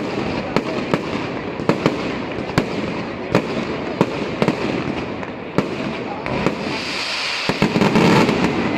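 Fireworks going off: a steady hiss of sparks with sharp cracks every second or so, swelling to a louder rush near the end.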